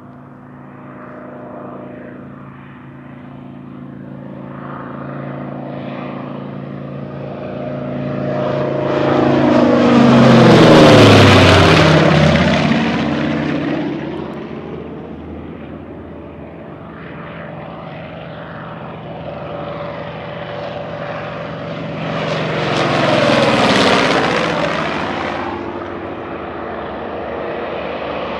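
Propeller warbirds with big radial piston engines making two low passes. The engine drone builds to a loud flyby about ten seconds in, its pitch falling as it goes past, then fades. A second, quieter pass swells and falls away a dozen seconds later; that one is the twin-radial Grumman F7F Tigercat.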